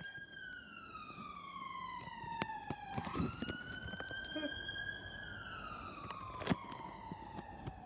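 Police car siren on its slow wail, the pitch sliding down for about three seconds, then sweeping back up and climbing again before falling once more. A few faint sharp clicks sound over it.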